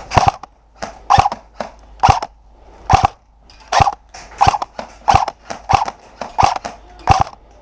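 Airsoft rifle firing about ten single shots in steady succession, less than a second apart.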